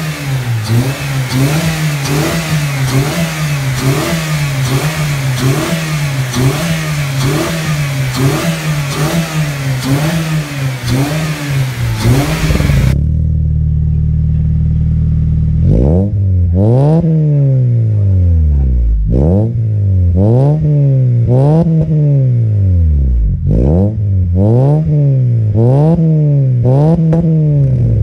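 Honda CR-V four-cylinder i-VTEC engine revved in quick repeated blips, about one a second, heard first from the engine bay with its aftermarket air intake. After a cut about 13 seconds in, it idles steadily for a couple of seconds through its aftermarket exhaust, then is blipped again and again, each rev rising and falling in pitch.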